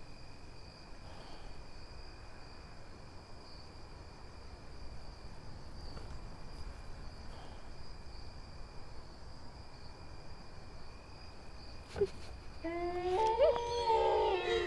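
Night ambience with a steady insect trill. About twelve seconds in there is a sharp knock, and then dogs start howling together, long held howls at several pitches at once.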